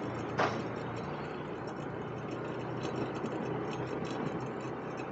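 Steady engine and road noise, with one sharp click about half a second in.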